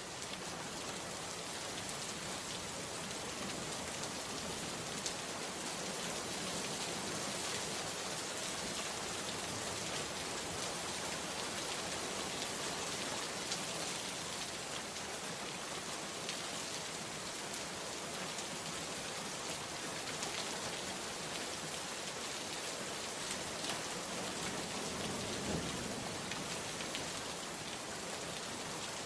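Steady rain falling, an even hiss with scattered individual drops.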